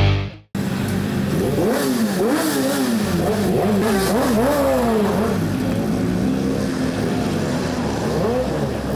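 Motor vehicle engines revving, their pitch climbing and dropping several times in quick succession, then running at a steadier pitch for the last few seconds.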